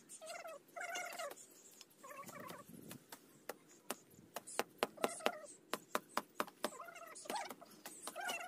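Cat meowing several times in short, rising-and-falling calls, with a quick run of sharp taps or clicks in the middle.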